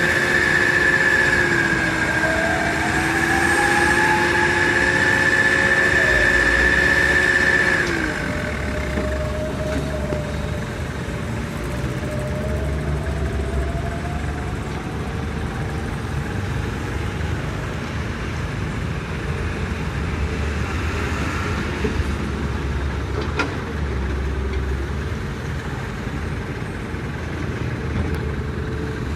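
Excavator and small dump truck engines running, with a loud, steady high whine over about the first eight seconds. The whine stops abruptly, leaving a lower engine rumble.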